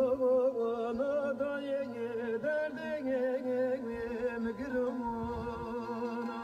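Music: a solo voice singing a long, wavering, ornamented melody with a steady tone underneath.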